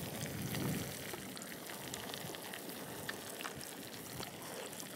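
Hot oil sizzling steadily with scattered small crackles as battered fish fries in a pan on a portable gas stove.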